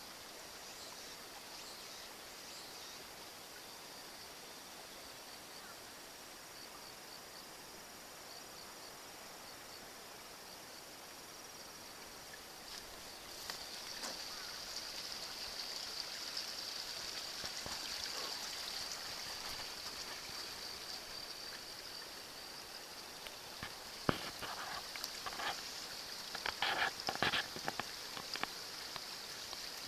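Outdoor paddy-field ambience: insects chirping in a steady high trill that grows louder about halfway through, over trickling, draining water. Near the end there is a quick cluster of sharp knocks or splashes.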